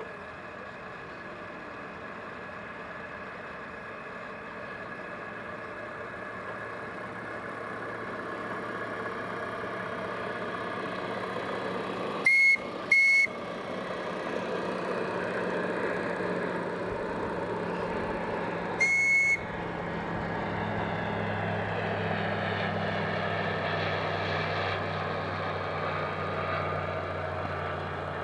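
Small steam launch running, its engine growing louder as it comes close. Its steam whistle sounds two short blasts in quick succession about halfway through, then a single short blast some six seconds later.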